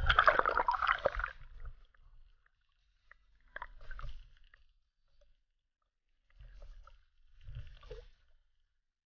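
Sea water splashing and gurgling around a camera plunged under the surface: one loud splash at the start, then three shorter, quieter sloshes, one a few seconds later and two near the end.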